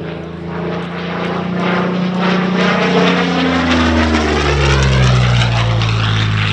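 Curtiss P-40N Warhawk's liquid-cooled Allison V12 engine and propeller running through an aerobatic pass, growing louder and dropping in pitch as it goes by about four to five seconds in.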